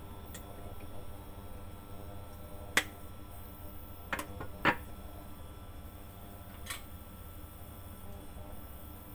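A few short, sharp clicks and knocks of kitchen containers being handled and set down on the counter beside a stainless steel pot, over a low steady hum.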